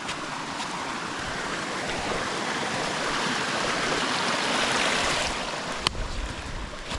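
Stream water rushing steadily, swelling louder and then easing off about five seconds in, with a single sharp click near the end.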